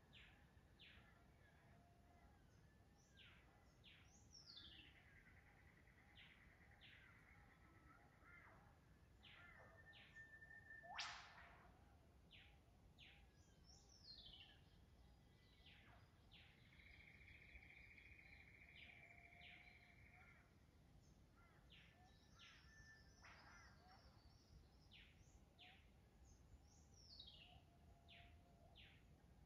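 Faint dawn chorus of forest birds waking at sunrise: many short descending whistles and downward-sweeping calls, two longer trills, and one sharp rising whip-like call about eleven seconds in, the loudest sound.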